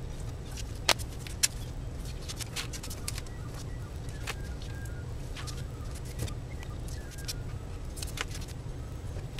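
Scattered clicks and ticks of paper and tape being handled on a cutting mat, two sharper clicks about a second in, over a steady low hum.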